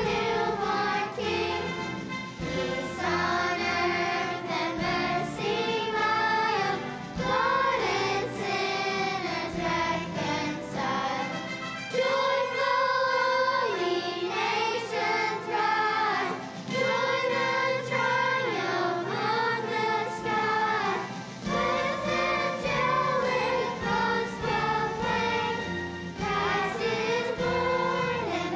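A children's choir singing a Christmas song in unison, with sustained, flowing notes.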